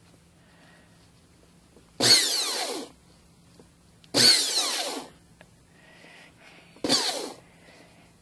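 Braun 200-watt hand blender motor run in three short bursts, each under a second, starting sharply and cutting off, with a whine that slides down in pitch. The motor runs again now that the bad solder joint at its switch contact has been re-soldered.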